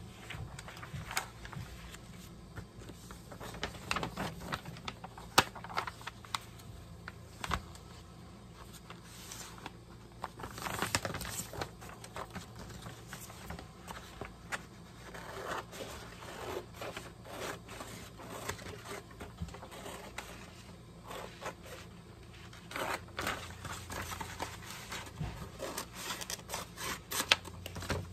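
Sheets of paper being handled, rustling and sliding over a paper-covered table, with scattered light taps and clicks. The sharpest taps come about five seconds in and near the end.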